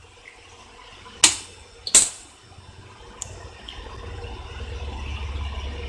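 An egg cracked on the edge of a nonstick frying pan: two sharp taps of the shell less than a second apart, about a second in. A soft hiss and low rumble build near the end as the egg goes into the hot pan.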